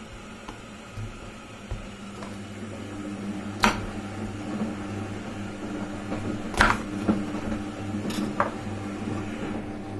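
Kitchen knife cutting through apples and striking a wooden cutting board: a few sharp knocks, the loudest about three and a half and six and a half seconds in, with lighter ones near the end. Under them runs a steady low mechanical hum that grows a little louder about three seconds in.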